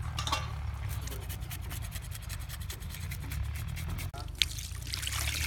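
Water poured and splashing over a whole pomfret on a wooden board while a hand rubs it clean, coming in about four seconds in after a run of rapid scratchy ticks, over a steady low rumble.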